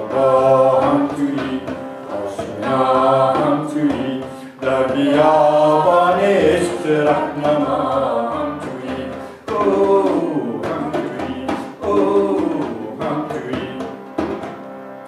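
Singers performing a chant-like melody over a steady harmonium drone. The voices drop away near the end, leaving the drone.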